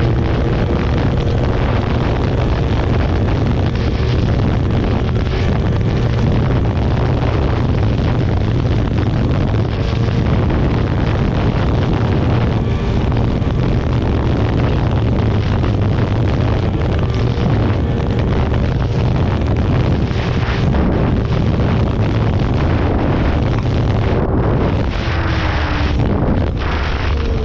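Two-stroke snowmobile engine running hard at speed, with wind buffeting the microphone. The engine's pitch shifts briefly at the start and again near the end.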